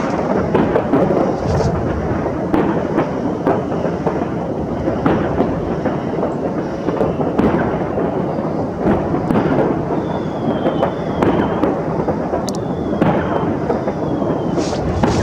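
Fireworks going off in large numbers: a dense, continuous rumble of many bangs and crackles, with a few short falling whistles in the second half.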